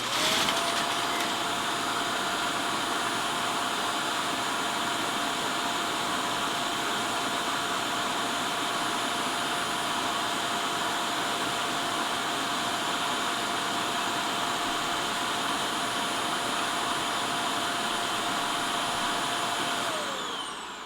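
Yeedi self-emptying base station's suction motor running steadily for about twenty seconds, pulling the debris out of the docked robot vacuum's dustbin into the base. It spins up sharply at the start and winds down with a falling whine near the end.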